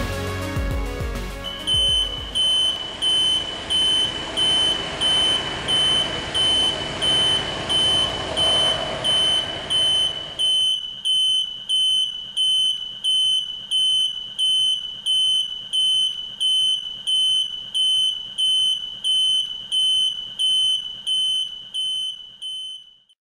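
Electronic alarm beeper sounding one high, steady tone in loud, even pulses, a little faster than once a second, then stopping shortly before the end. The tail of the intro music fades out under the first beeps.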